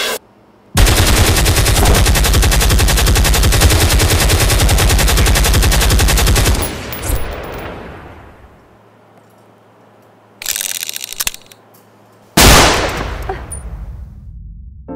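A long, loud burst of rapid automatic gunfire lasting about six seconds, then fading. Near the end come a brief burst of noise and then a single loud bang that dies away.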